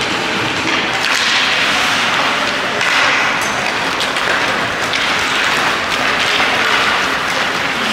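Hockey arena crowd applauding, a dense clatter of clapping that swells and eases about once a second, starting just as the arena music cuts off.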